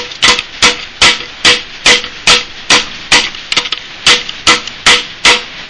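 Hammer blows on metal, evenly paced at about two and a half a second, each with a short metallic ring: driving a stuck valve lifter out of its bore in a Chevy 327 engine block.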